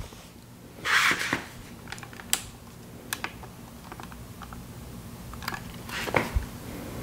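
Camera handling noise as the camera is carried and repositioned: a short rustling scrape about a second in, then scattered light clicks and taps, with a louder cluster of clicks and a scuff near the end.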